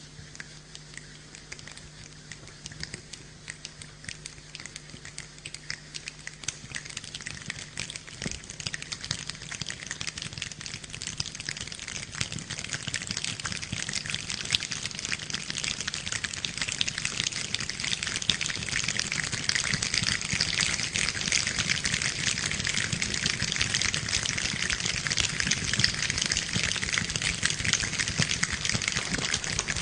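Rain imitated by people rather than real rain: a dense pattering of many small taps and clicks that starts sparse and builds steadily louder, like a shower turning into a downpour.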